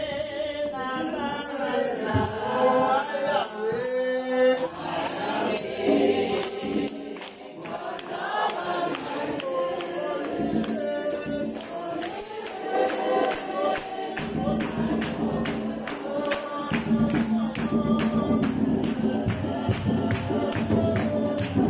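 Congregation singing a hymn together, with a tambourine keeping a steady beat.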